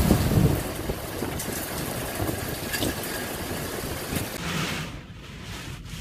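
Heavy thunderstorm rain pouring down, with a low rumble of thunder dying away in the first half-second and a steady hiss of rain after it.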